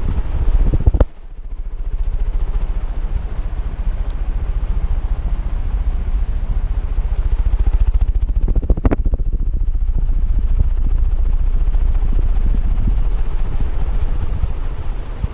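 48-inch DEMCO industrial ceiling fan running at full speed, its downdraft buffeting the microphone into a loud, rapidly pulsing low rumble. The rumble drops out briefly about a second in, and there is a short knock near nine seconds.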